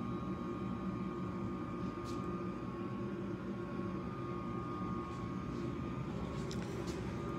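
Electric box fan running: a steady low whir with a faint high whine, and a few faint clicks about two seconds in and near the end.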